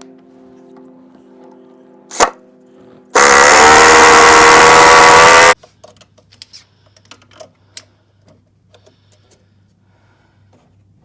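Power drill pre-drilling into timber: the motor spins up with a rising whine, runs loud and steady for about two seconds, then stops suddenly. A sharp click comes just before it, and light knocks and clicks follow.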